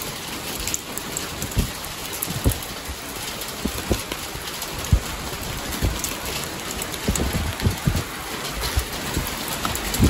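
Heavy rain pouring steadily, with scattered short low thumps through it.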